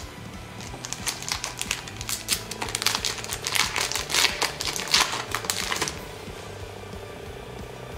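Foil trading-card booster pack wrapper being crinkled and torn open: a dense run of crackles that starts about a second in and stops about six seconds in.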